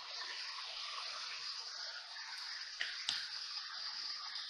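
Quiet room tone with a steady hiss from the recording, broken by two sharp clicks about a third of a second apart, roughly three seconds in.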